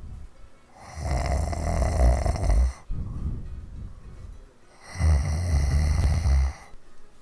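A woman snoring heavily in her sleep: two long, loud snores, each just under two seconds, about four seconds apart, with quieter breathing between them.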